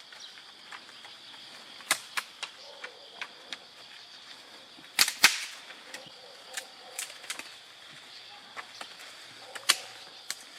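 Dry weed stalks and twigs snapping and crackling as someone pushes through tall, dense grass, with scattered sharp cracks, the loudest about five seconds in. A steady high hiss runs underneath.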